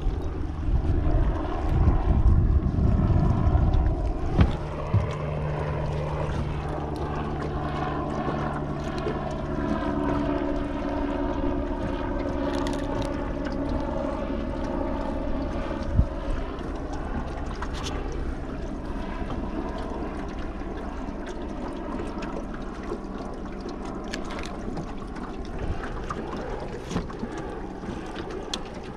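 Wind and water noise around a small aluminium fishing boat. A steady low hum runs from about five seconds in until about halfway through. A few sharp clicks come as the lip grips and tackle are handled while unhooking a fish.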